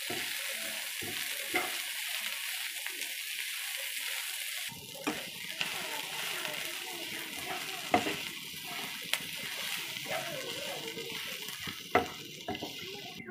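Chopped onions and green chillies sizzling in hot oil in a karahi while being stirred, with a steady hiss and a few sharp clicks and scrapes of the spatula against the pan.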